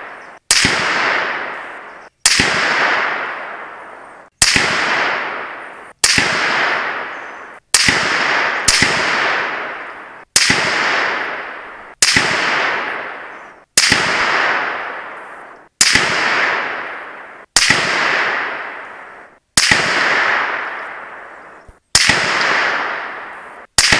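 Rifle shots heard from the target end of the range, about fourteen in quick succession roughly every one and a half to two seconds. Each is a sharp crack followed by an echo trailing away, then cut off abruptly.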